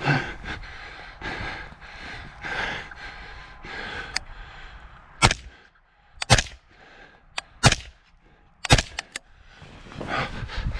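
Geissele URGI 14.5-inch AR-15 rifle in 5.56 firing four sharp shots in about three and a half seconds, starting about five seconds in, with fainter sharp cracks between them. Before the shots, only a low rustling noise.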